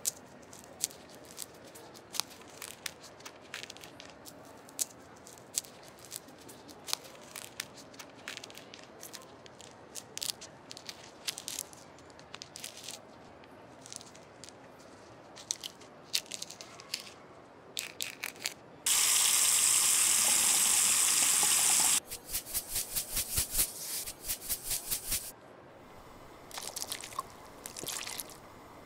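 Gloved hands plucking red grapes off their stems and dropping them into a stainless steel mesh strainer: scattered light clicks and crackles. About two-thirds of the way in comes a burst of running water for about three seconds, then a quick run of clicks.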